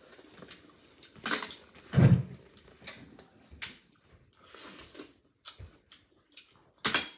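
Mouth sounds of someone eating steamed clams: wet slurps and chewing as the meat is sucked from the shells, with a few short sharp slurps, the loudest near the end.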